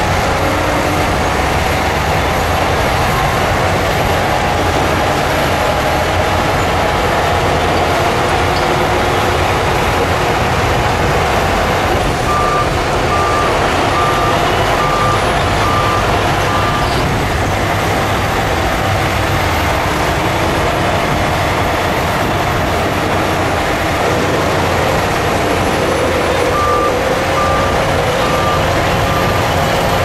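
Heavy earthmoving machinery running steadily, with a reversing alarm beeping at about one and a half beeps a second in two runs, about twelve seconds in and again near the end.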